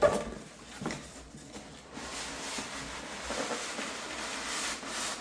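A toy RC excavator being slid out of its box, with packaging rubbing and scraping against it for a few seconds. There is a sharp knock right at the start.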